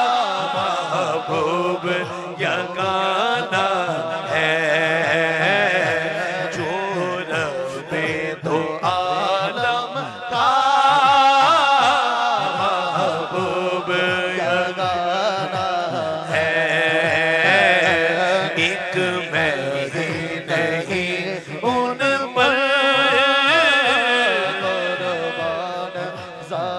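Naat sung unaccompanied by instruments over a microphone and sound system: a solo voice holding long, wavering melodic phrases, with a low steady drone beneath.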